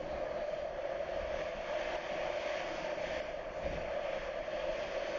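Washington Metro railcar running, heard from inside the car: a steady running noise with a constant drone.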